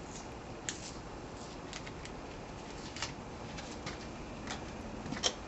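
Faint, scattered small clicks and taps of hands handling a small part, over a steady background hiss; the sharpest click comes near the end.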